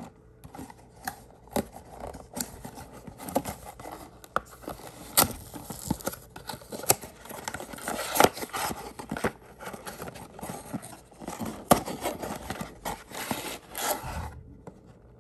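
A paperboard trading-card box being opened by hand: scraping and tearing of the card stock with many sharp clicks as the flap is worked open, then foil-wrapped card packs crinkling as they slide out near the end.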